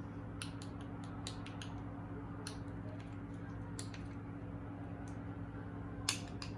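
Light scattered clicks and taps of a teaspoon measuring out turmeric from a spice container, with a slightly louder tap about six seconds in, over a steady low hum.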